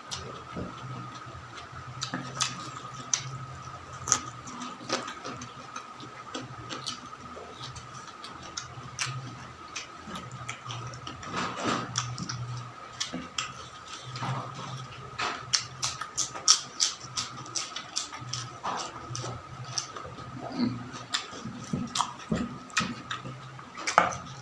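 A person eating close to the microphone: chewing, lip smacks and irregular sharp clicks and crunches of food. A steady faint high tone and a low hum sit underneath.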